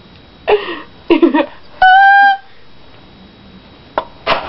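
Short vocal yelps, then a loud, steady high squeal held for about half a second, about two seconds in; two short sharp sounds near the end.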